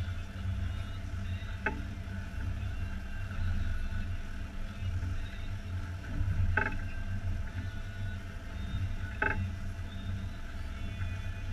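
Twin outboard motors idling steadily, with three short, sharp knocks a few seconds apart.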